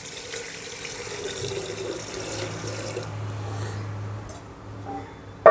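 Water poured into an empty metal cooking pot, a steady splashing pour for about three seconds that then tapers off. Right at the end comes one sharp metallic clank with a short ring.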